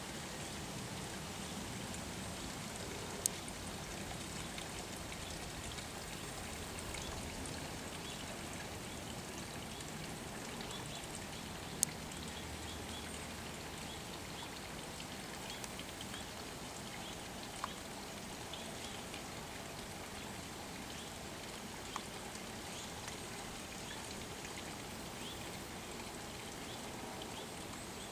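Steady even outdoor background noise, hissing like running water, with a few sharp isolated clicks and faint short high chirps now and then.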